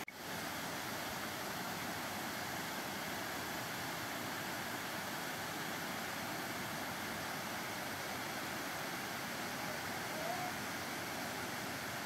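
Steady rush of flowing water from a rocky stream and waterfall, an even hiss with no breaks.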